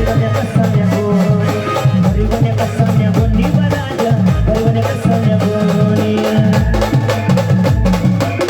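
Live Maharashtrian brass band playing a song: sustained horn melody over fast, dense drum and percussion strokes, with a deep bass drum beat about once a second.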